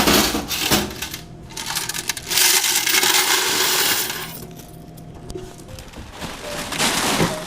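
Coins from a vending machine's coin box being poured out in a long jingling clatter, heaviest from about a second and a half in to about four and a half seconds, then tapering off.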